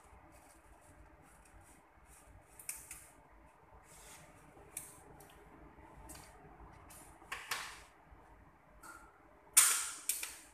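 Welding arc struck in short bursts of high hiss while welding overhead on stainless steel sheet, the longest and loudest near the end.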